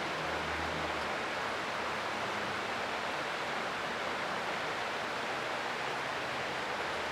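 Creek water flowing with a steady rushing sound. A faint low hum underneath fades out about a second in.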